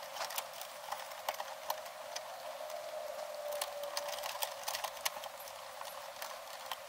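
Scattered small clicks and scrapes of stiff copper electrical wires and a plastic wire nut being handled, as the wire nut is twisted off the neutral wires and the neutrals are twisted together.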